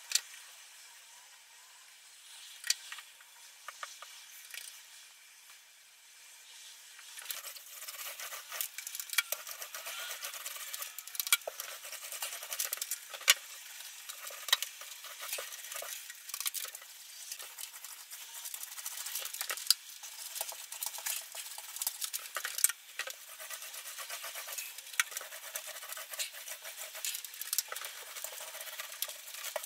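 Small paint roller spreading a wet coat of sealer over a ceiling, giving a fine, sticky crackle. It is sparse at first and grows busier and louder about a quarter of the way in, once the rolling gets going.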